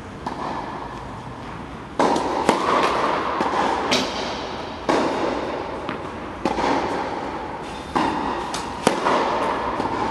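Sharp tennis-ball impacts in a large indoor tennis hall, about every one and a half seconds, each followed by a long echo that dies away. The last, near the end, is the serve struck off the racket.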